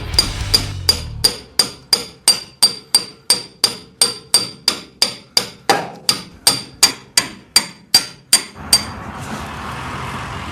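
A hammer beating on steel in a steady run of ringing blows, about three a second, stopping about nine seconds in.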